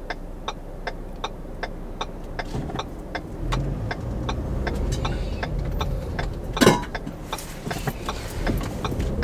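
Car interior while driving: engine and road rumble grows about three seconds in as the car picks up speed, with an even ticking about three times a second throughout. About two-thirds of the way through there is one louder knock, a Yeti tumbler rolling and banging against the seat.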